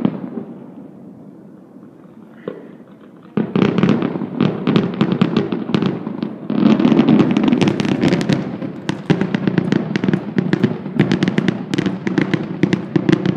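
Fireworks grand finale: a rapid barrage of overlapping bangs and crackles from bursting aerial shells. It dies down over the first few seconds, with a single pop in the lull, then starts again about three seconds in and grows into a continuous volley.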